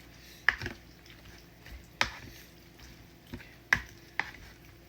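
Four sharp clicks of chopsticks knocking against a bowl of noodle soup while spinach is pushed down into the hot broth to wilt, spread unevenly: one about half a second in, one at two seconds, and two close together near the end.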